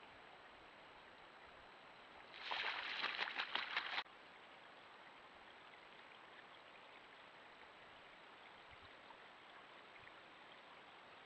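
A bald eagle splashing as it bathes in shallow open water: a rapid flurry of splashes lasting about a second and a half that cuts off abruptly, over the steady hiss of a trail camera's microphone.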